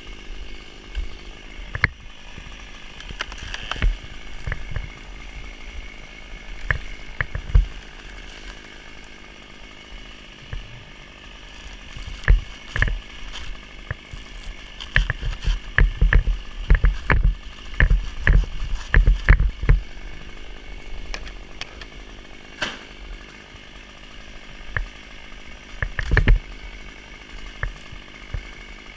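Curved hand pruning saw cutting dry palm frond bases, with rasping strokes and sharp cracks and knocks that come thick in the middle and again near the end. Under it runs a steady mechanical hum.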